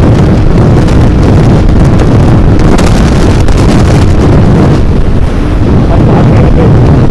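Loud, steady wind buffeting on the microphone of a moving motorcycle, with the Royal Enfield Hunter 350's single-cylinder engine running underneath.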